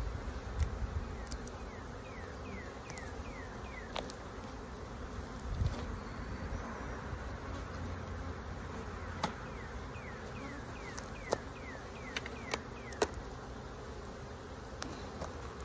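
Honeybees buzzing around opened hives, a steady hum, with several sharp clicks and knocks now and then, the loudest near the end. Two runs of quick falling chirps, one early and one about two-thirds of the way through, sound over the hum.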